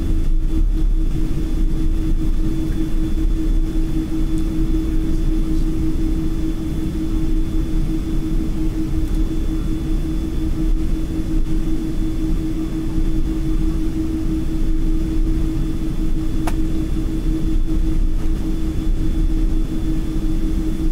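Cabin noise of a jet airliner taxiing, heard from a window seat: the engines running steadily at taxi power as a low rumble with a constant hum and a faint high whine. A single small click sounds about sixteen seconds in.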